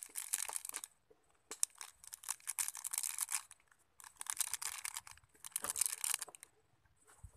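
Plastic instant-noodle packaging crinkling and tearing in four bursts of crackly handling.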